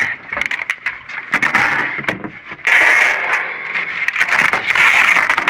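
Debris being shifted by hand in a dumpster: a run of sharp knocks and clatters, then about midway a steadier scraping rustle.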